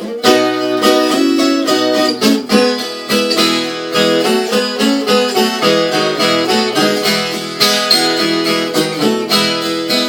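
Viola caipira (Brazilian ten-string folk guitar) picking a quick melodic instrumental intro over steady low notes.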